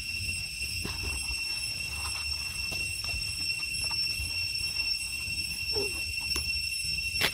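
Steady high-pitched drone of insects over a low rumble, with faint scattered clicks and rustles of dry leaves and one sharp click near the end.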